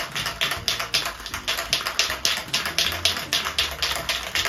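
Aerosol spray paint can being shaken hard, the mixing ball rattling inside it in a fast, even clatter of about five clacks a second, mixing the gloss black paint before spraying.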